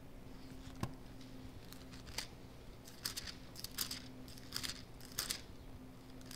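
Bible pages being leafed through: a soft knock about a second in, then a run of short papery rustles.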